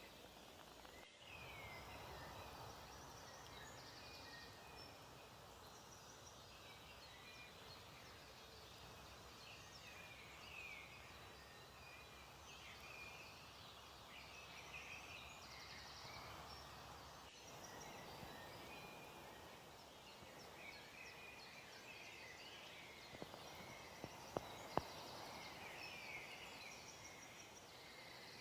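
Many small birds chirping over a faint steady outdoor hiss, with short calls overlapping throughout. A few sharp ticks come about three-quarters of the way through.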